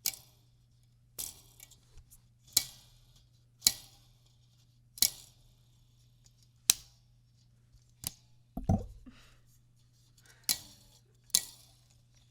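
Desk lamp's jointed arm squeaking as it is moved: about nine short, sharp squeaks at uneven intervals of a second or so, with one lower, longer creak and a dull knock about two thirds of the way through.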